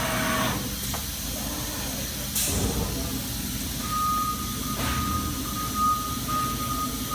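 Industrial machinery under power, a used Thermwood CNC router: a steady machine hum, a short burst of air hiss about two seconds in, and a steady high beeping tone that starts about four seconds in and carries on.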